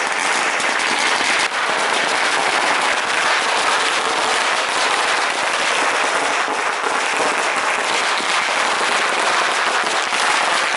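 A string of firecrackers going off in one unbroken, rapid crackle of small bangs.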